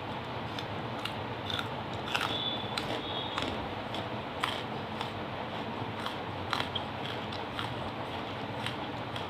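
Close-up chewing of hard wet charcoal lumps: irregular sharp crunches and clicks over a steady hiss, with a brief squeak about two seconds in.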